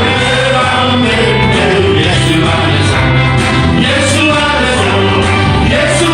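Vocal ensemble singing a gospel song with a steady band accompaniment of bass and drums.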